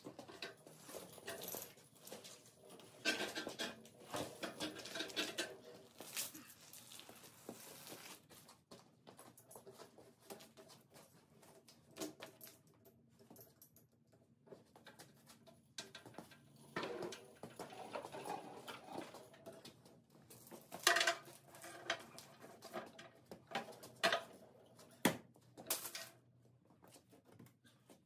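Irregular clanks, clinks and scrapes of metal gear being handled, heaviest about three seconds in, near seventeen seconds and again around twenty-one to twenty-five seconds.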